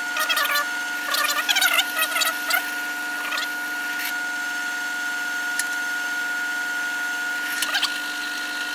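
Drill press running with a steady motor whine while a twist drill bores a pilot hole of just under 1/4 inch into steel bar stock. Scratchy, squealing cutting noises come in bursts for the first two and a half seconds and briefly again near the end.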